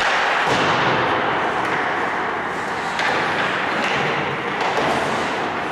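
Ice hockey play: a steady scraping hiss of skates on the ice with a few sharp clacks of sticks and puck.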